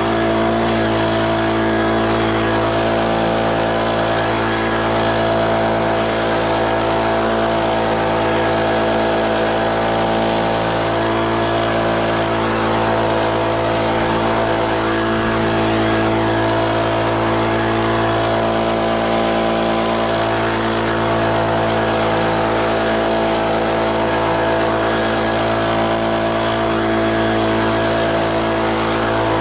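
Leaf blower running steadily at a constant speed, its engine pitch and loudness unchanging.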